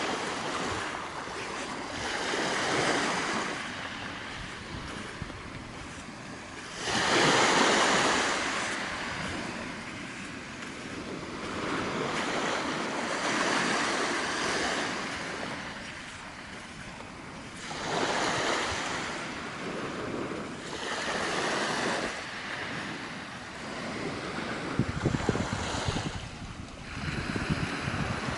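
Small waves breaking and washing up the shore, a surge every four to six seconds, the loudest about seven seconds in. Rough wind rumble on the microphone near the end.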